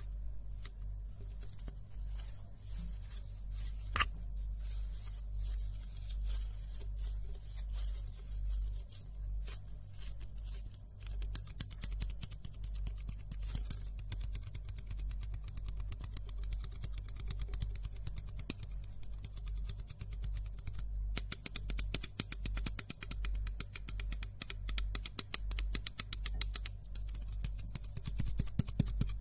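ASMR hand movements: fingertips rubbing and fluttering right at the microphones, a fine crackly skin rustle that grows denser about two-thirds of the way in. There is one sharp click about four seconds in, and a low steady hum underneath.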